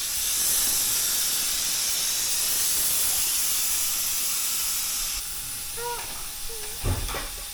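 Air hissing steadily out of a truck tire as it is deflated, dropping off sharply about five seconds in. A dull thump follows near the end.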